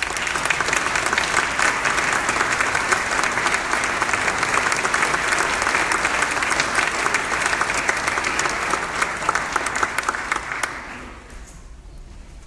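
Audience applauding, starting suddenly and dying away shortly before the end.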